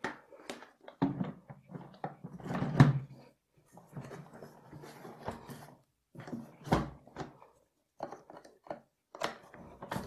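Plastic knocks and clunks as the vacuum cleaner's motor head is set onto its plastic bucket, with one heavier thump about two-thirds of the way through as it seats. Quick clicks near the end come as the side clips are fastened.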